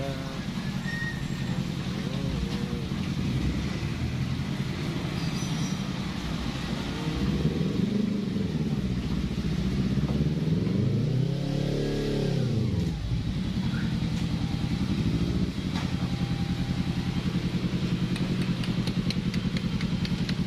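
Kawasaki Versys motorcycle engine running, its pitch rising and falling as it is revved, with one clear rev up and back down about twelve seconds in.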